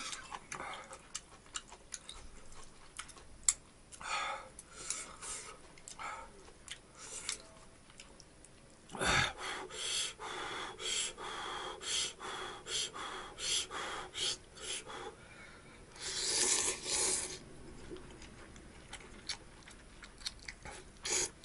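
A person eating ramen noodles: chopsticks and a spoon clicking against a ceramic bowl, then a run of short slurps and one longer slurp about three quarters of the way through.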